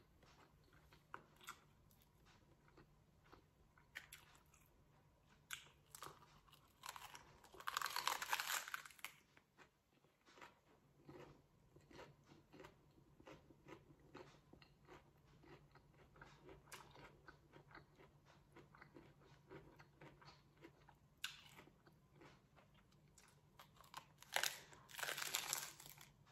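A person chewing and crunching on a crisp lettuce-wrap taco. There are small chewing clicks throughout, and louder crunches from bites about seven seconds in and again near the end.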